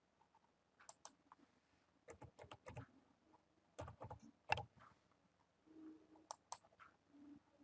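Faint keystrokes on a computer keyboard, in irregular clusters, as a one-time SMS code is typed in. A couple of separate clicks follow about six seconds in, as the confirm button is clicked.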